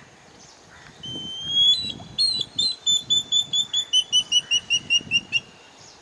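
Great stone-curlew (stone plover) calling: a rising whistle about a second in, then a rapid run of about fifteen short, loud whistled notes, about five a second, each a little lower in pitch, that stops abruptly near the end.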